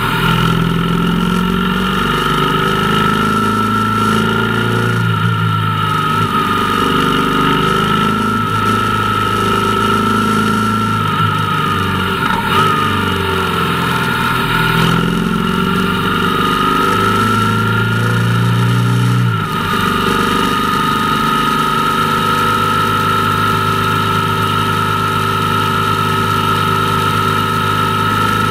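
Motorcycle engine running under way, its pitch rising and falling several times through gear changes, then holding steady for the last third.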